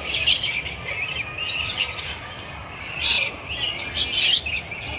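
Lorikeets calling: short, shrill, screechy calls, about five of them scattered through the few seconds.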